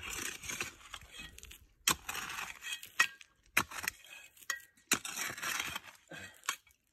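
Small hand shovel digging into gravelly creek-bank soil: a gritty scrape every second or two, with stones clinking against the blade.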